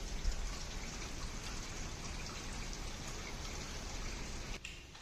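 Heavy rain falling steadily in an even hiss, cutting off suddenly near the end.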